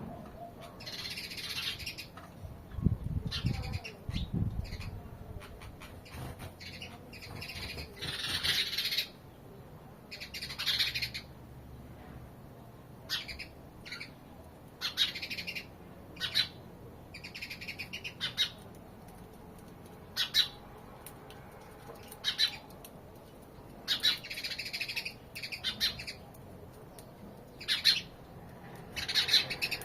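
Sparrows chirping in short bursts every second or two. A loud low thudding comes about three seconds in.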